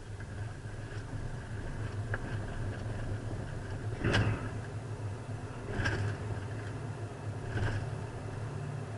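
A steady low engine hum, with three knocks about two seconds apart in the second half.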